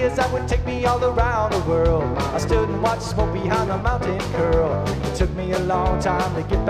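Live rock band of electric guitar, electric bass and drum kit playing a blues-rock groove, a guitar line of bent, wavering notes over steady bass and regular drum hits.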